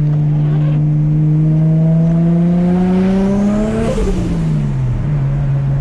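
Nissan RB25DET turbocharged straight-six in an R33 Skyline running steadily, then revving up under acceleration before the revs drop sharply about four seconds in as the throttle closes, settling to a steady lower note.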